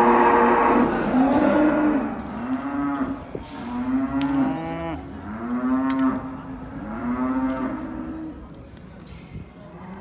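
Several cattle mooing: a string of long, overlapping moos, one after another. The calls are loudest at the start and die away about eight seconds in.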